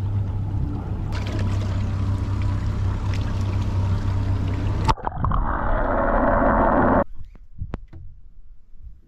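Boat engine running steadily with water and wind noise for about five seconds, then an abrupt change to a louder, different noise for about two seconds that cuts off suddenly, leaving only faint clicks.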